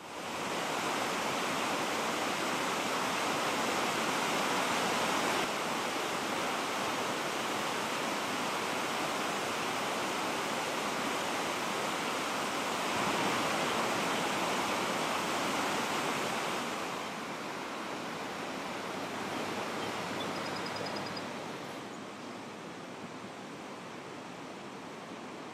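Floodwater rushing over overflowing dam spillways: a steady, even rush of falling water that gets quieter in two steps in the second half.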